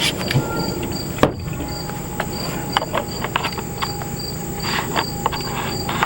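Crickets chirping in a steady pulsing rhythm, about two chirps a second, with scattered clicks and knocks over it.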